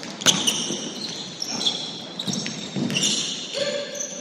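Basketball game play: sneakers squeaking again and again on the court, and the ball bouncing, with a sharp knock about a quarter second in.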